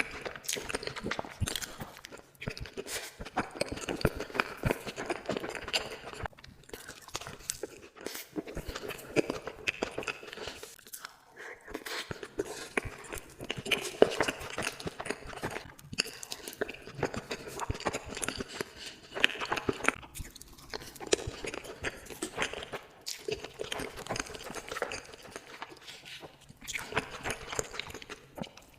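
Close-miked eating sounds of sweets: bites, crunching and chewing, in a run of short segments broken by brief gaps every few seconds.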